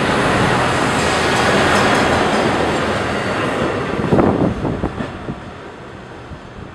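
A works train of track-maintenance wagons and its locomotive rumbling past on the rails, with a burst of clattering wheel knocks about four seconds in as the last wheels go by, then the sound fading away.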